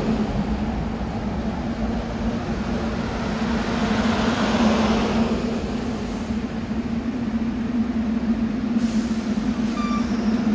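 SEPTA Regional Rail Bombardier push-pull coaches rolling slowly along the platform as the train pulls in. Their wheels make a rushing rumble over a steady low hum.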